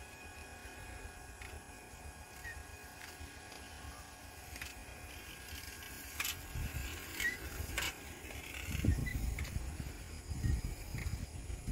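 Quiet outdoor ambience with a few faint high chirps, a few sharp clicks around the middle, and a low rumble from about two-thirds of the way in, typical of handling and wind on a handheld phone microphone.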